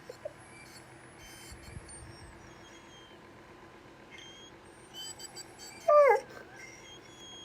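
Dog whining to be given a toy: a faint short whimper at the start, then one loud whine about six seconds in that slides down in pitch.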